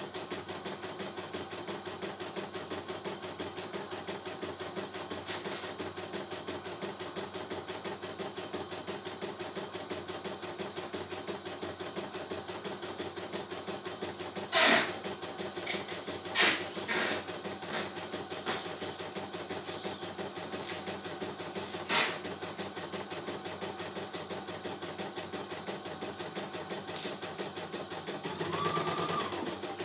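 CNY E900 computerized embroidery machine stitching a design in its hoop, its needle mechanism running in a rapid, even rhythm. A few sharp, louder clicks stand out about halfway through.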